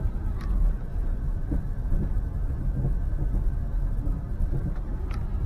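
Steady low rumble of a car driving, with engine and road noise heard from inside the cabin, and a couple of faint clicks.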